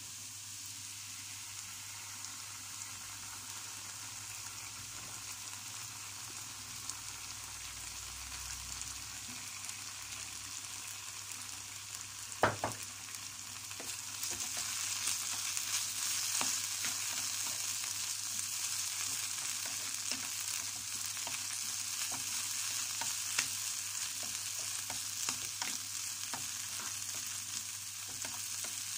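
Celery and garlic sizzling in oil in a frying pan, with oyster sauce just added. About halfway through there is one sharp knock, then the sizzle grows louder as a wooden spatula stirs and scrapes the vegetables around the pan.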